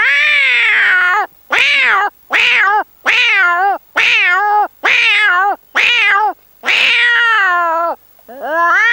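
A man imitating a cat by mouth: a run of about eight loud meows, each rising and then falling in pitch. The first and the one near the end are drawn out longer than the short ones between.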